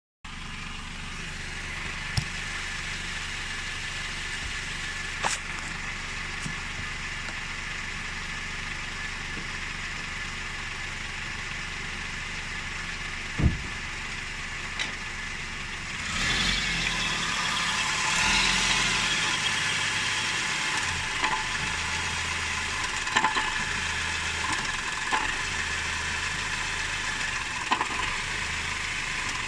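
Car engine idling, with separate sharp knocks scattered through it, the loudest about halfway in. The knocks are knocking in the manual gearbox that comes with pressing the clutch pedal. Just past halfway the running sound turns louder and noisier, and more knocks follow.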